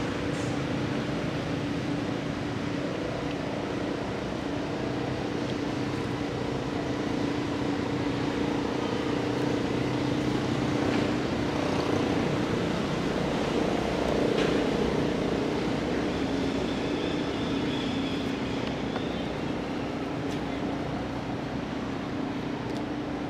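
A steady engine hum: a low drone with a few held tones, swelling slightly around the middle.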